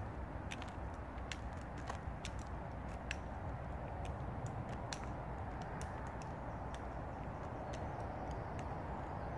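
Roadside ambience: a steady low rumble with scattered sharp clicks and taps, and a vehicle approaching near the end.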